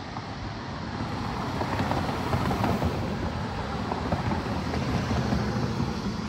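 Road traffic noise from a vehicle going by on the street, swelling about a second in and easing off near the end.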